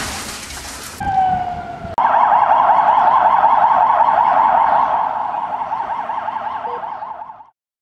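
A burst of harsh noise lasting about a second, then a short falling tone, then an ambulance siren warbling rapidly for about five seconds. The siren fades a little before it cuts off suddenly near the end.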